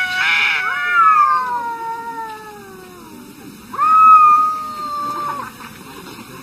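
Cats yowling at each other in an aggressive standoff. A long, wavering yowl slowly falls in pitch over about three seconds, then a second, steadier yowl comes about four seconds in.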